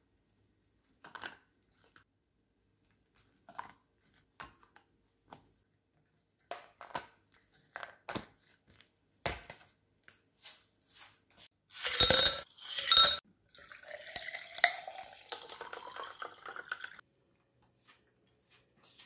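Kitchenware being handled: a rice paddle and plastic food containers clicking and knocking against each other on a counter. Two loud clatters come about twelve seconds in, followed by a few seconds of continuous sound rising in pitch.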